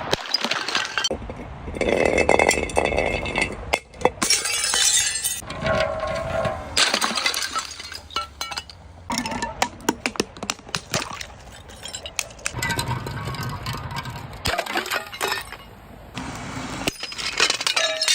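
Glass bottles breaking, one after another: a run of separate shattering episodes full of sharp cracks, with glass shards clinking, tinkling and ringing.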